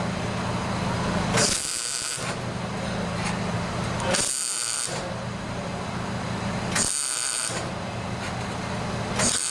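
Mac Tools MIG welder welding the rusted exhaust joint between the catalytic converter and the pipe, a steady buzz and crackle. It comes in runs of about two seconds broken by short pauses, four runs in all.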